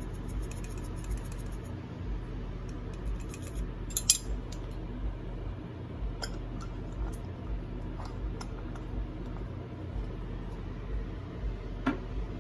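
A few scattered light clinks and ticks of kitchenware against a stainless steel mixing bowl, the sharpest about four seconds in, over a steady low hum.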